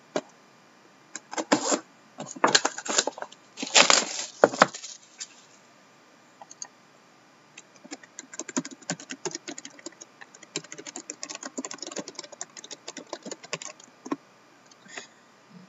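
A few loud scrapes and rustles as cardboard card boxes are handled on a desk, then several seconds of rapid clicking from typing on a computer keyboard.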